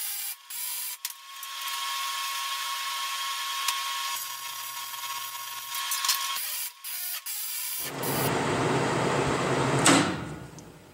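Time-lapsed shop noise from a cast iron repair, stick welding with nickel rod and peening with an air hammer. A steady hiss with a constant high tone runs with a few short breaks, then a louder, rougher noise comes in about eight seconds in, with a sharp click near the end, and fades out.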